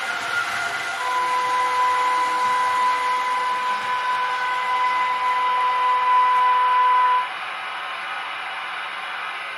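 Sound decoder of a Märklin H0 BR 101 model electric locomotive plays a steady high tone for about six seconds over its running sound. The tone cuts off suddenly as the locomotive comes to a stop.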